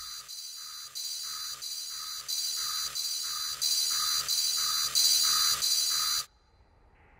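Synthesized electronic pulsing tone, beating about two to three times a second and getting louder in steps, then cutting off suddenly about six seconds in.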